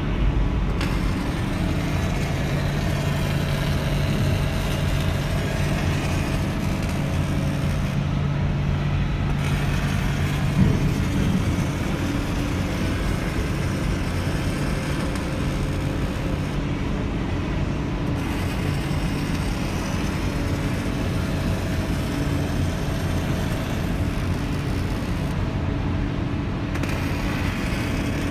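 Machinery running steadily with a low hum under a broad rushing noise; the high hiss drops away briefly three times, about every eight to nine seconds.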